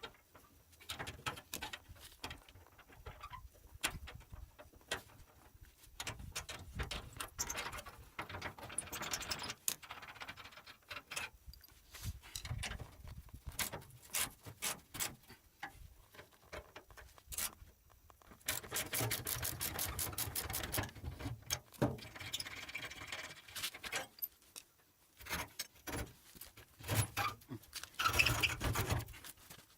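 Spanners and metal parts of a wheelbarrow's axle clinking and knocking as its nuts and retainers are undone and the wheel is changed. About two thirds of the way through comes a run of rapid, evenly spaced clicks, and another cluster of clicks comes near the end.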